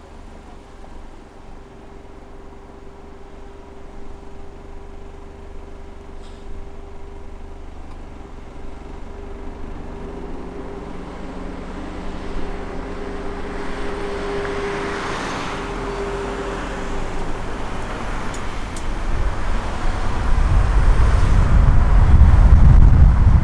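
Car on the move: steady engine and road noise with a faint hum, growing steadily louder. A heavy low rumble builds over the last few seconds.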